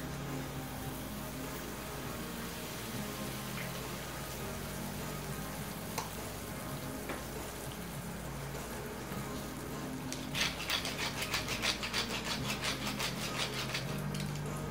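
Mayonnaise-topped toast sizzling steadily on a hot iron griddle. About ten seconds in, a black-pepper grinder is turned over it: a quick run of even clicks, about five a second, for some four seconds.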